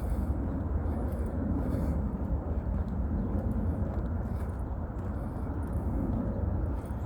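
Steady low rumble of distant engine noise with no distinct event in it.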